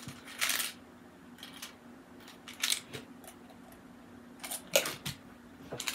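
A small metal tin of plastic quilting clips being handled and opened: a series of short clicks and clatters as the lid is worked off and the clips rattle inside.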